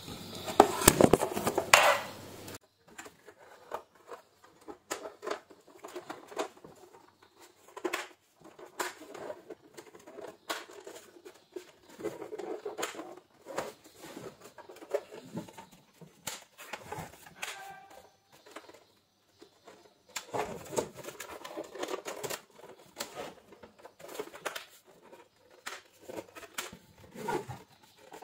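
Plastic clicks, taps and rattles as a Samsung LCD monitor's front bezel and button board are handled and pressed back into place, loudest in the first two seconds.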